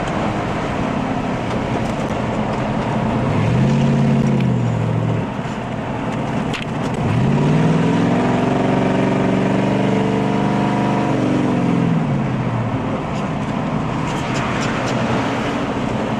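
Dodge Charger's 400 big-block V8 heard from inside the car at speed, over steady wind and road noise. The engine note climbs briefly about four seconds in, then climbs again about seven seconds in, holds, and falls away at around twelve seconds.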